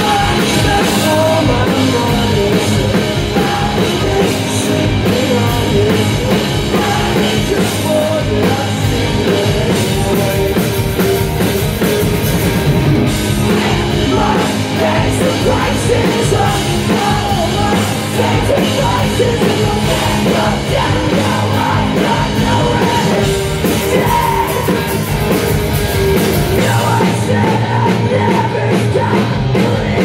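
Live rock band playing loud and without a break: distorted electric guitars, bass guitar and a Tama drum kit, with sung and shouted vocals over the top.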